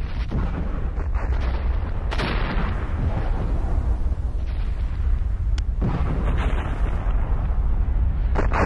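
Volcanic eruption: a deep, continuous rumble, with violent blasts breaking out about two, six and eight and a half seconds in.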